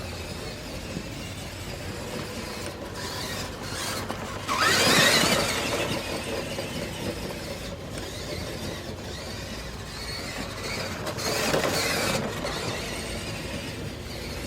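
Bicycle making a scratchy rubbing 'sagak-sagak' noise as it runs, with two louder swells, one about four and a half seconds in and one near eleven seconds.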